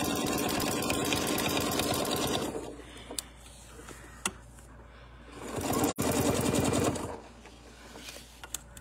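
Domestic sewing machine stitching rapidly as it quilts a straight line, stopping about two and a half seconds in. After a pause with a couple of light clicks, it runs again for about a second and a half.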